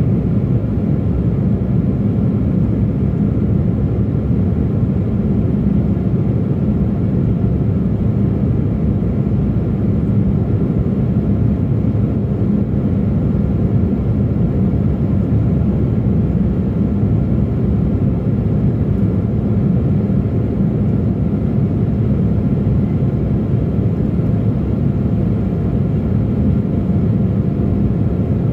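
Steady cabin noise inside an Embraer E175 climbing after takeoff: a low, even rush of airflow and turbofan engine hum, with no changes.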